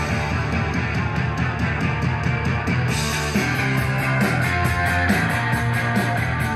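Rock music with guitar and a steady drum beat, played through KLH 403A indoor/outdoor speakers with 4-inch polypropylene mid-woofers.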